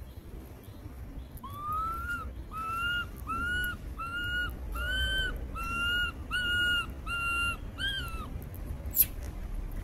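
A monkey calling: about ten short, arched calls repeated at an even pace, each rising and then levelling off, over a low rumble. A single sharp click comes near the end.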